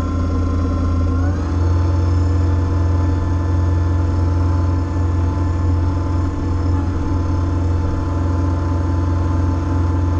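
Kubota BX25 subcompact tractor's three-cylinder diesel engine running steadily. About a second in the throttle is raised and the engine settles at higher revs, working the backhoe hydraulics.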